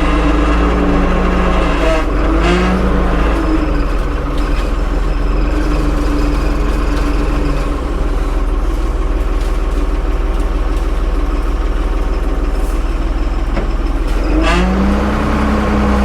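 Tractor engine running under the operator's control, its speed rising and falling briefly about two seconds in and climbing again near the end.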